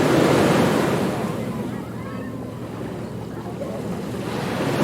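Ocean waves breaking on a beach: a surge of surf at the start that washes back and fades, then the next wave building near the end.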